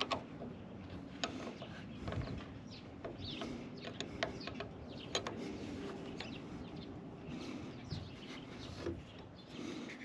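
Light metallic clicks and clinks of two wrenches on a bolt and nut as a battery cable is tightened onto a lawn tractor's battery terminal, with birds chirping in the background.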